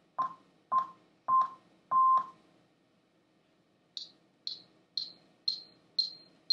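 Demonstration pure sine-wave tone blips, about two a second, each a little longer than the one before: a series near 1 kHz ends about two seconds in, and after a pause a higher-pitched series near 4 kHz begins about four seconds in.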